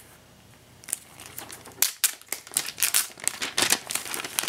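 Thin plastic packaging film being peeled off and handled, crinkling in quick irregular crackles that begin about a second in.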